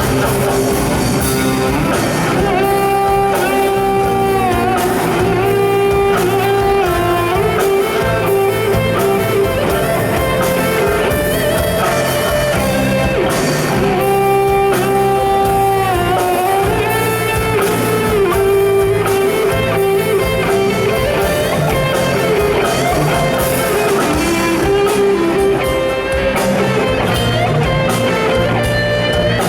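A rock band playing an instrumental passage with guitar, including long held melody notes over a steady bass line.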